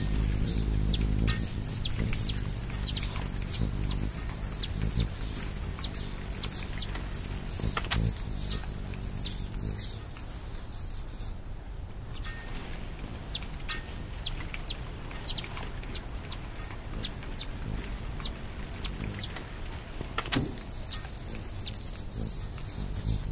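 Insects trill in a steady high, unbroken drone, crickets or the like, with short bird chirps scattered over it. The trill stops for about a second halfway through, then resumes. A low hum at the start fades out within the first two seconds.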